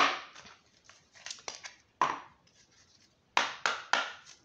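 A small deck of oracle cards being taken from a heart-shaped box and shuffled by hand: dry card swishes and taps, one at the start, another about two seconds in, then a quick run of several near the end.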